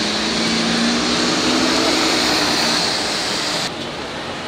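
Loud, steady street din with a low engine-like drone that rises slightly and fades out about three seconds in; the whole sound drops off abruptly near the end.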